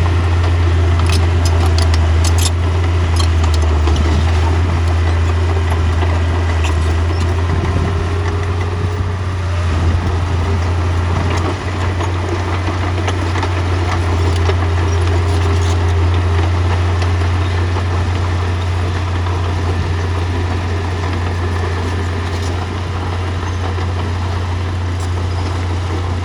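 Bulldozer's heavy diesel engine running steadily with a deep, unbroken drone, with a few faint clanks in the first few seconds.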